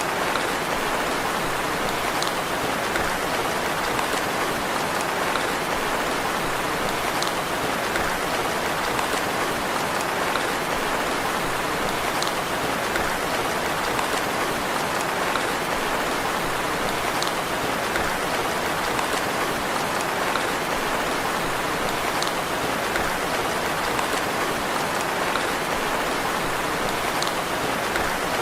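Steady, gentle rain falling, an even hiss of drops with a faint tick about every five seconds.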